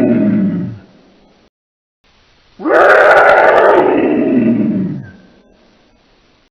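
Dinosaur roar sound effect: one roar fades out, then after a short silence a second roar of about two and a half seconds sounds, its pitch dropping as it ends.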